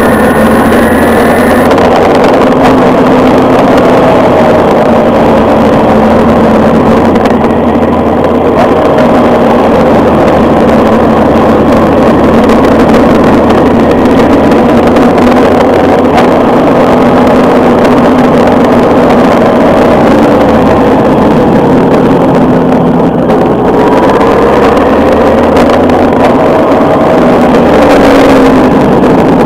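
Motorcycle engine running at road speed, its pitch rising and falling gently as the throttle is worked through the curves, over a steady rush of wind and road noise.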